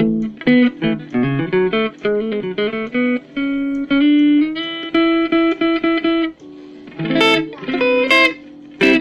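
Mavis MST 600 electric guitar played with a clean tone: quick picked single-note lines and repeated notes, then a couple of strummed chords, with a brief drop in the playing after about six seconds and a short pause near the end.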